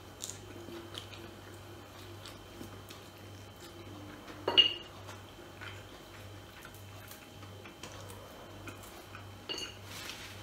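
Someone eating by hand at a table: small scattered clicks and smacks of chewing. About four and a half seconds in comes one sharp clink of dishware. A low steady hum runs underneath.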